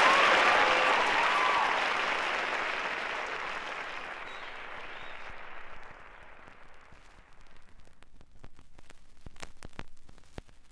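Audience applause with a shout or two in the first couple of seconds, dying away over about six seconds. After that come the scattered clicks and crackle of a vinyl record's surface.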